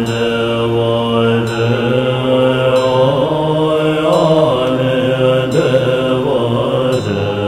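Buddhist mantra chanting: low voices held on a steady drone, with a chanted line moving up and down in pitch above it.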